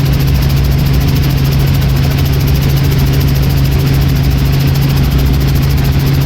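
Helicopter running steadily, a constant low hum with a fast, even pulsing behind it.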